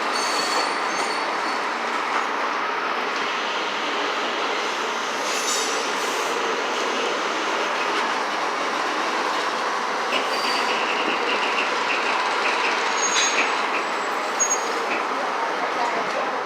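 Passenger train rolling slowly, heard from aboard: a steady rumble of wheels on rail, with brief high-pitched wheel squeals and a few clicks over the track.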